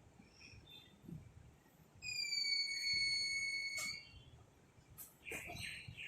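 A single high, steady whistle-like tone held for about two seconds, dipping slightly in pitch as it starts and cut off with a click. Brief faint chirps follow near the end.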